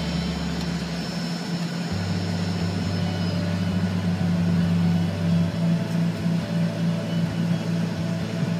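Airliner cabin noise while taxiing after landing: jet engines at idle and air noise making a steady hum, with a low rumble underneath that changes about two seconds in and again past halfway.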